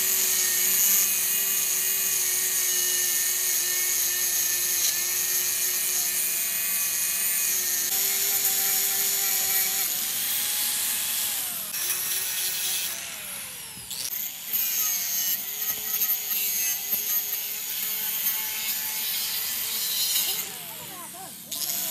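Angle grinder running against a steel gear, grinding down the weld built up on a broken tooth to reshape it. A steady motor whine over a gritty grinding hiss, easing off briefly about halfway through and again near the end.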